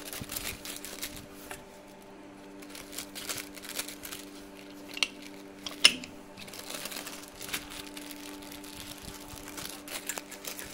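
Clear plastic sheets crinkling and rustling as they are handled and laid over a cast-iron papad press, with one sharp metallic clack from the press a little past the middle. A steady faint hum runs underneath.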